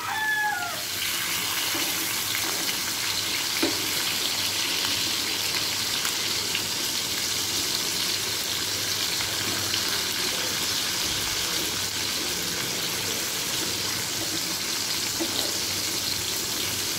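Marinated fish steaks sizzling steadily as they shallow-fry in hot oil over a medium flame. The tail of a rooster's crow fades out in the first second.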